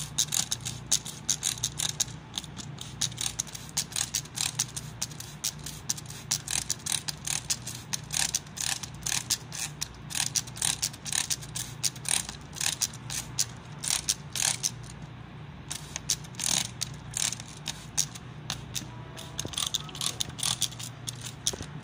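Handheld trigger spray bottle squeezed over and over, each stroke a quick click of the trigger with a hiss of spray, in a fast run broken by a few short pauses.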